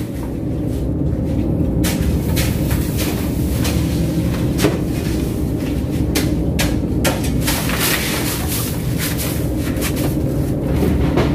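A fishing trawler's engine running with a steady low drone, with scattered knocks and clatters as crushed ice is tipped from a basket over fish in the hold.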